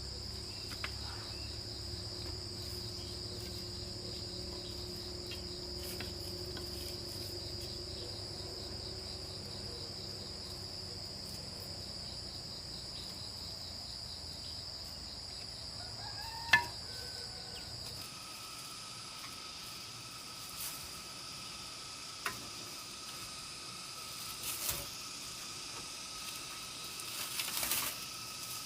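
Insects chirring steadily in a high, continuous drone. A single sharp click comes about two-thirds of the way through, and a few softer knocks and rustles follow near the end.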